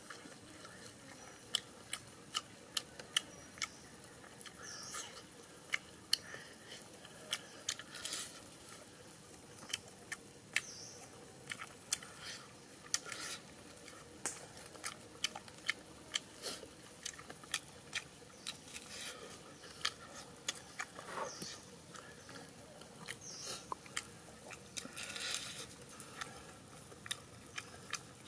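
A person chewing and smacking their lips while eating grilled tire track eel by hand, with many short, irregular clicks and smacks.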